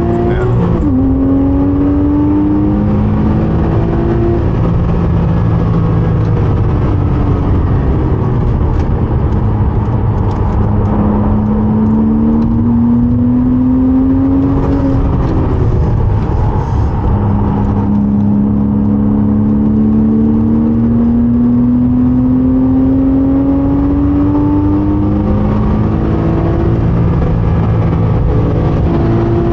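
Porsche 987.2 Cayman S's 3.4-litre flat-six pulling hard through the gears. The engine note climbs steadily in each gear and falls at each upshift, with one long climb through the middle.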